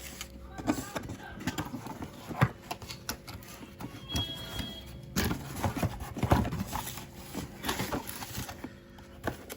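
Cardboard box and plastic packaging being handled and opened, with irregular taps, knocks and rustles.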